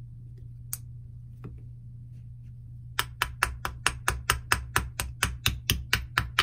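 A couple of light metal clicks, then from about three seconds in a small brass-headed hammer taps rapidly and evenly on the steel trigger assembly of a Martini Cadet action, about four to five taps a second.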